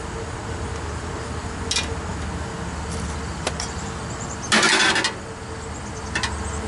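Metal hand tools clattering for about half a second as a hand-held copper tube bender is picked up, with a few light clicks and taps from handling the copper tubing before and after, over a steady low hum.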